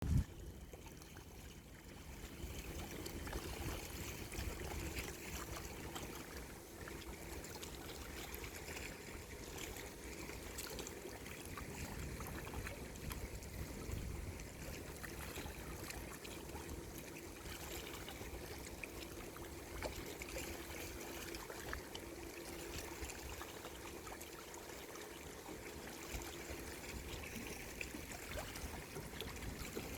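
Sea water lapping and trickling steadily, with a faint steady hum underneath and a short bump right at the start.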